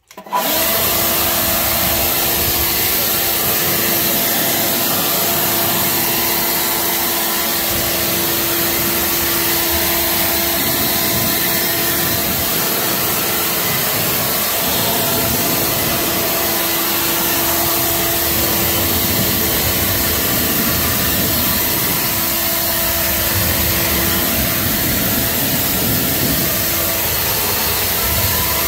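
Handheld air blower switched on and running steadily with a constant whine, blowing dust out of a car's interior.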